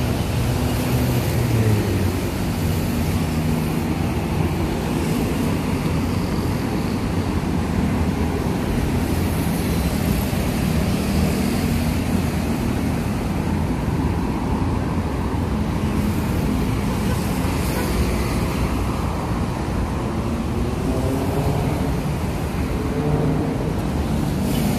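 Steady road traffic: engines of passing cars and vans running, with a constant low hum and tyre noise.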